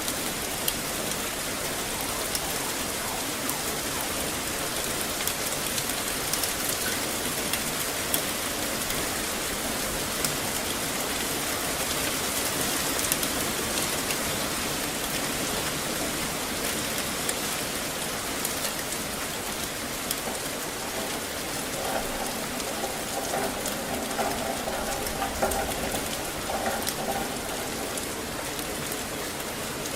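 Steady rain falling on hard surfaces, with many sharp individual drop ticks over an even hiss.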